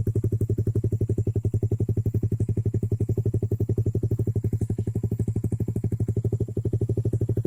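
Suzuki GSX-R150's single-cylinder four-stroke engine idling through an SC Project underbelly aftermarket exhaust: a steady, deep putter of about ten beats a second.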